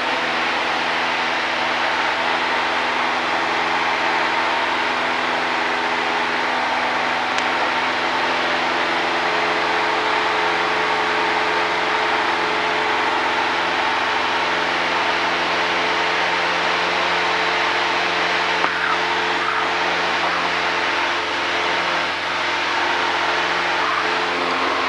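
Steady drone of a Cessna single-engine piston airplane's engine and propeller in level flight, heard inside the cabin, with a hiss of wind noise over it.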